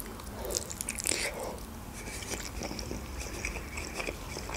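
Close-miked mouth sounds of biting into and chewing a boiled khinkali dumpling: many soft clicks, busiest in the first second and a half, then quieter chewing.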